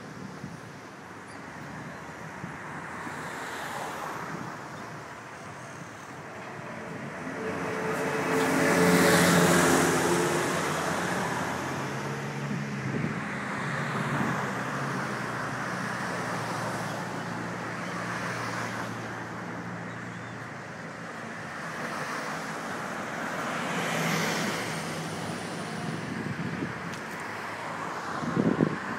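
Road traffic on a busy street: a steady wash of tyre and engine noise as vehicles pass. One vehicle with a low engine hum passes loudly about a third of the way in, another passes later, and there is a short bump near the end.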